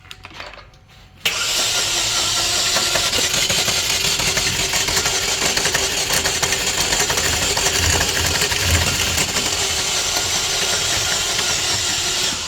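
2011 Chevy Equinox four-cylinder engine cranking on the starter without catching, spinning fast for about eleven seconds: it cranks fast because of low compression, found in cylinder 4. The cranking starts suddenly about a second in and stops just before the end.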